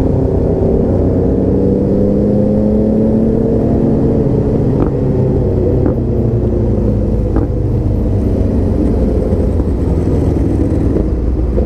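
Motorcycle engine running under way, heard from a helmet-mounted camera, with wind noise over it. The engine note rises a little over the first few seconds, then holds steady.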